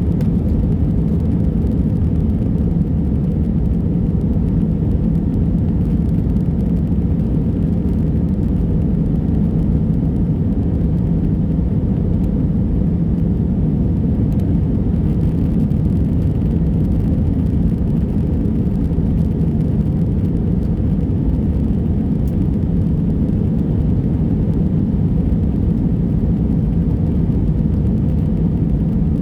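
Steady low rumble of engine and airflow noise inside an Airbus A320's passenger cabin, holding at a constant level.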